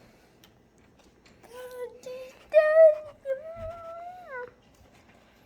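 Husky vocalising with a few drawn-out whining howls, the loudest about two and a half seconds in, the last one sliding down in pitch.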